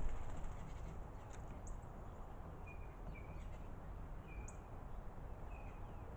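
Birds giving short, high chirping notes, about five of them at irregular intervals, over a low background rumble.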